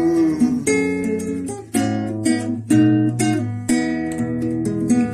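Instrumental passage of a song: chords strummed on a plucked string instrument, about two strums a second.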